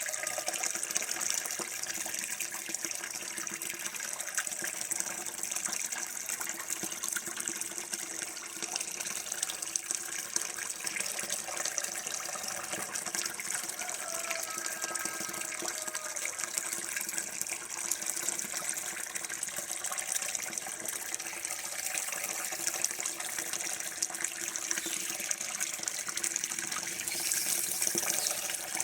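Water running steadily from a tap, a continuous splashing flow.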